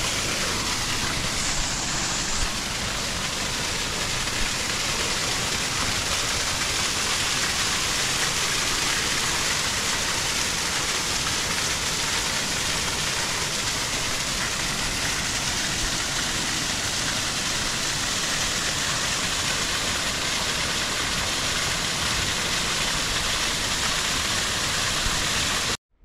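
Rushing water of a small rain-fed waterfall cascading down roadside rocks, a steady even noise. It cuts off suddenly near the end.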